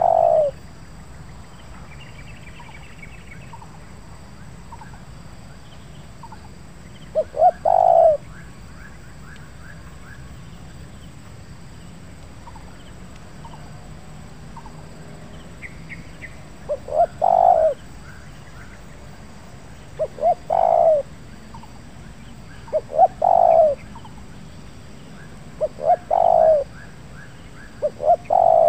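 Spotted dove cooing: about seven short phrases spaced a few seconds apart. Each phrase is a couple of quick lead notes followed by a longer, deeper coo.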